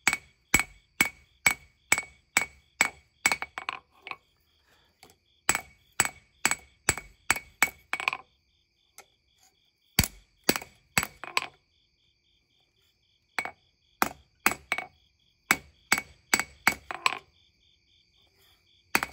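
Hand hammer striking hot leaf-spring steel on an anvil, about two blows a second in runs of several strikes with short pauses between, a high ring carrying on between blows. This is the forging of a knife's bevels, drawing the edge out thin.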